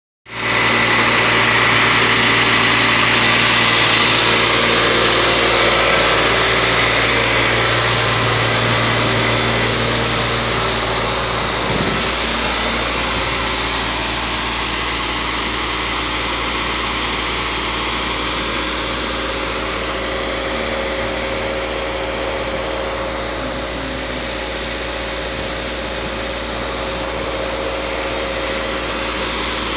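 Scania 114G vacuum tanker's straight-six diesel running steadily while driving its rotary vacuum pump to pump bacterial sludge through the hose. The low hum shifts about twelve seconds in.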